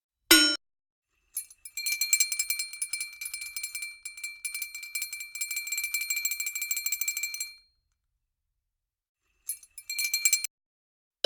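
Cartoon sound effects: a single short knock, then about six seconds of rapid metallic jingling like shaken small bells, and near the end a second, brief burst of the same jingle.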